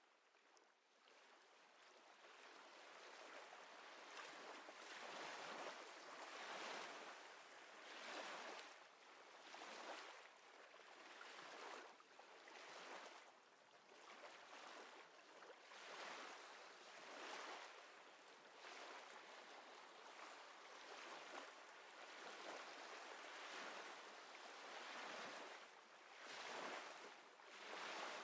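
Faint lapping of small waves, a soft rushing that swells and ebbs about every two seconds, fading in from silence at the start.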